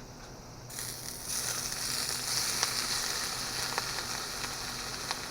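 Food sizzling in a hot pan, starting about a second in and going on steadily, with a few small pops.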